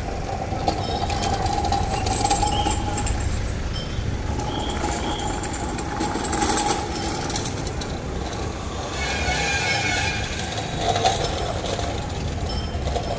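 Steady street noise: a low traffic rumble with a constant hum and no single clear event.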